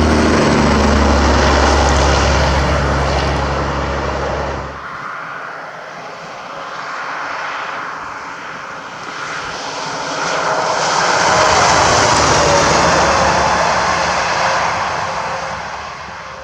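Semi truck passing on the highway: a steady low diesel engine drone that cuts off abruptly about five seconds in. It is followed by the rushing tyre and wind noise of another passing vehicle, swelling and then fading.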